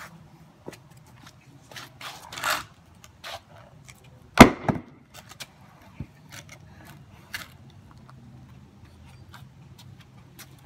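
A sharp wooden knock about four seconds in, followed at once by a second, among light handling clicks and a rustle, over a faint steady low hum.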